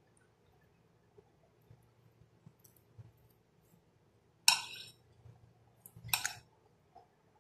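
Metal spoon stirring boiled chickpeas, potato and onion in a glass bowl: soft, quiet mixing, then two sharp clinks of spoon on glass, one about halfway through and the other a second and a half later. The first clink is the loudest.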